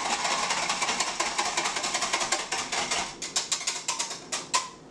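Wire balloon whisk beating a milk, cream and sugar mixture in a glass measuring jug: a fast, steady clatter of the wires against the glass. It slows into separate clicks after about three seconds and stops near the end.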